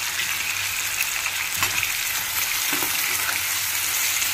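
Small stuffed green brinjals sizzling in hot oil with an onion-tomato masala in a frying pan, stirred with a steel spoon, with a few light knocks and scrapes over the steady sizzle.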